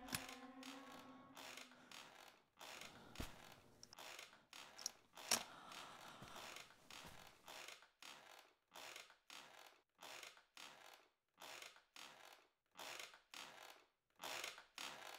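Faint creaking and tapping of metal forearm crutches as someone walks slowly on them, a soft stroke about twice a second, with a few sharper ticks a few seconds in.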